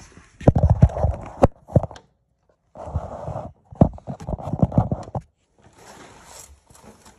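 Irregular knocks, taps and scraping, as of hard objects handled and set down on a table top. The sounds come in clusters, broken by two short gaps of silence.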